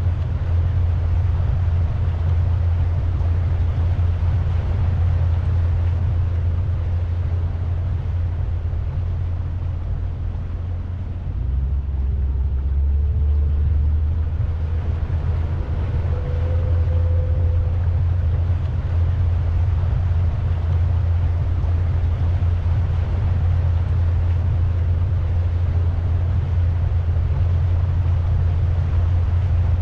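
Pontoon boat's motor running steadily under way, a low drone over a wash of wind and water noise. The drone deepens and swells briefly about twelve seconds in.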